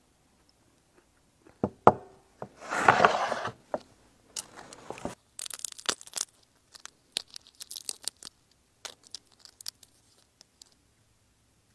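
Boiled crayfish being broken apart and peeled by hand. A couple of sharp cracks come first, then a louder tearing about three seconds in, then a run of small shell crackles and snaps.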